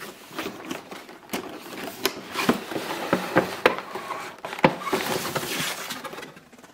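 Cardboard box flap opened and a clear plastic blister tray of action figures handled and lifted out: a run of crinkles, clicks and taps, with a longer rustling scrape about five seconds in.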